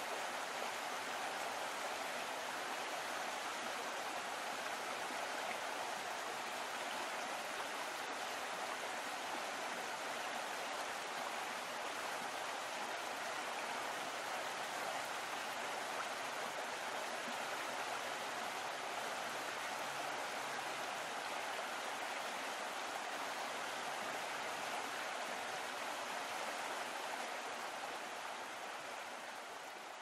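Steady rush of moving water, fading out over the last few seconds.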